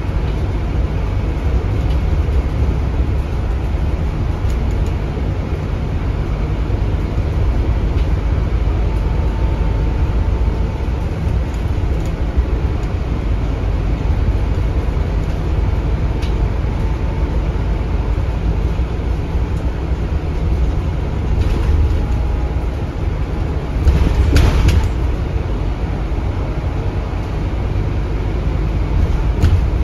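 Ride noise inside a Scania K320UB city bus with its Scania DC9 diesel engine: a steady low engine and road rumble heard from the passenger cabin. About 24 seconds in there is a brief, louder burst of noise lasting about a second.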